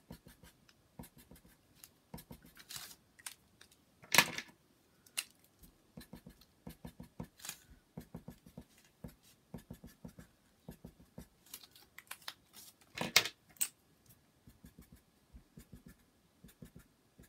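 Sharpie marker tips tapping and scratching out short dashes on paper laid on a table, a rapid irregular patter of small ticks. Two louder sharp clicks stand out, about four seconds in and again about thirteen seconds in.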